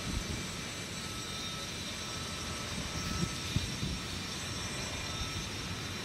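Steady low outdoor background rumble, with a couple of faint clicks a little past the middle.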